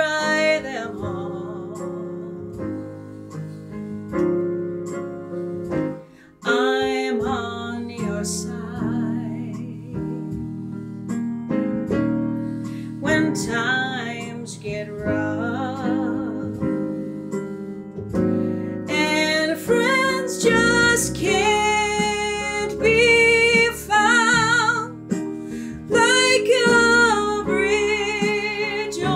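A woman singing with vibrato to electric keyboard accompaniment, with a short break between phrases about six seconds in.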